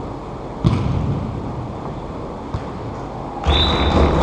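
Indoor arena soccer play: a sharp thud about half a second in, like a ball being kicked or striking the boards, then near the end a louder thud together with a short, steady high whistle tone.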